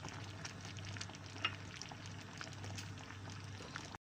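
Thickened potato sauce with lotus roots simmering in a pan, giving scattered soft bubble pops, one a little louder about a second and a half in, over a steady low hum.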